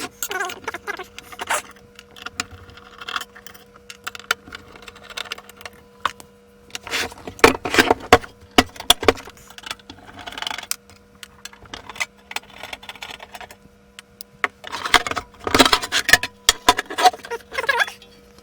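An all-metal instrument case being opened by hand: clicks, knocks, rattles and scraping of metal parts, busiest about a third of the way in and again near the end, over a faint steady hum.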